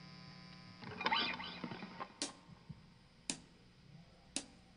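A steady amplifier hum cuts off suddenly under a second in, followed by a brief rustle. Then a drummer counts in the song with three sharp stick clicks about a second apart.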